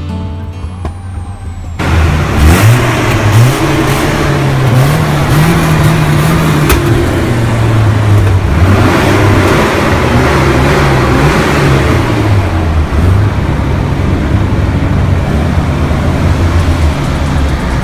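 Folkrace car engine running loud and revving, its pitch rising and falling repeatedly. It comes in about two seconds in.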